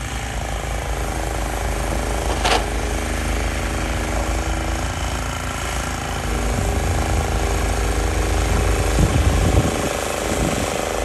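Two-stage snow blower's small gasoline engine running steadily under load while clearing deep snow and throwing it out the chute. A brief sharp knock sounds about two and a half seconds in.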